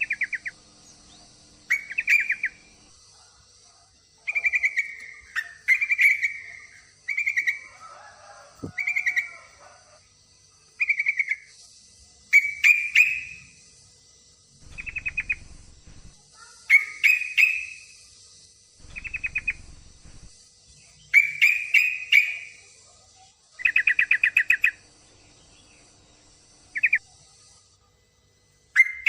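Female yellow-vented bulbul (trucukan) giving short, rapid chattering calls, repeated every second or two: the calls of a female in breeding condition summoning a male. A steady faint high-pitched buzz runs underneath.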